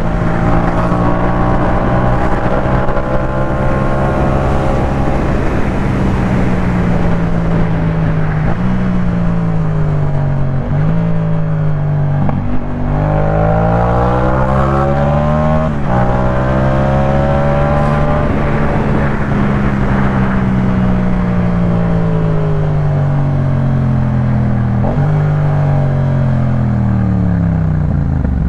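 Yamaha MT-07's 689 cc parallel-twin engine running through a Jeskap K4 full aftermarket exhaust on the move, its revs rising and falling with several gear changes. A steady rush of wind and road noise runs under the engine.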